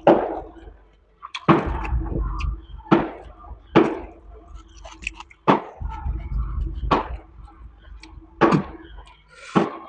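Close-up eating sounds: sharp smacks and crunches of chewing spicy chicken fry and rice, about one every second or so, with low dull thumps between.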